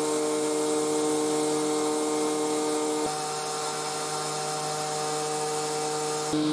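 CNC router spindle driving an end mill through 5083 aluminium plate, a steady whining cut over a hiss. It is still a little fuzzy sounding but cutting cleanly with the resharpened-feeling original end mill. The pitch of the whine shifts abruptly about three seconds in and again near the end.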